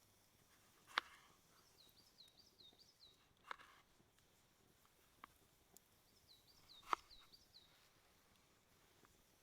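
A small songbird sings two short phrases of six or seven quick down-slurred notes, a few seconds apart, over faint forest quiet. Three sharp clicks or knocks stand out as the loudest sounds: about a second in, around three and a half seconds, and near seven seconds.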